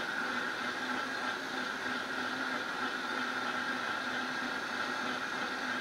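Vitamix blender running steadily at top speed (10), blending a full jar of green juice: an even whir with a constant high tone.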